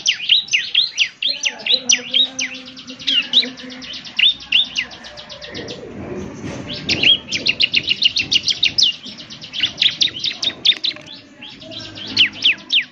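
Bar-winged prinia (ciblek) singing a fast, chattering song: rapid trills and runs of sharp, high notes that each sweep downward, thinning briefly around the middle before picking up again.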